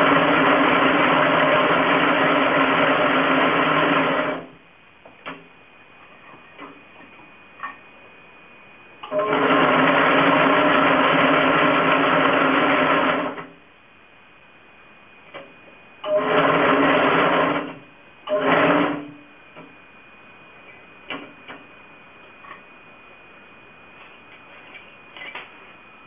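Homemade maypole braiding machine running, its bobbins circling as it braids a sleeve over a wiring harness, with a steady mechanical whir. It runs about four seconds at the start, another four seconds from about nine seconds in, then in two short bursts of about a second each around sixteen and eighteen seconds. Between runs only a few light clicks are heard.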